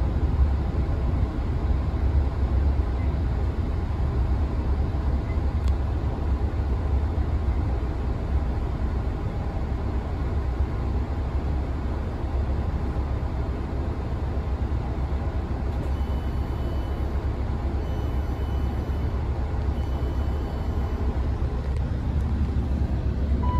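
Interior noise of a Class 166 Turbo diesel multiple unit: the steady low rumble of its six-cylinder turbo-diesel engines and running gear as the train slows into a station, stands, and pulls away again. Faint high beeps sound several times in the second half.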